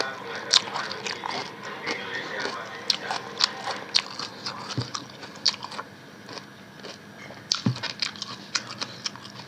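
Close-miked eating sounds: biting and chewing food, with many sharp, wet mouth clicks.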